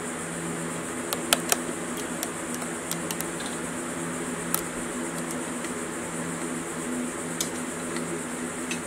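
Scattered light clicks and taps of hand tools and small parts handled against a stripped classic Mini engine block, most of them in the first three seconds, over a steady background hum.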